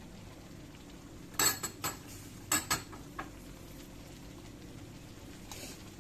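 Kitchen utensils clinking and knocking against cookware: a quick cluster of sharp clinks a little over a second in and again around two and a half seconds, then a lighter one later, over a low steady hum.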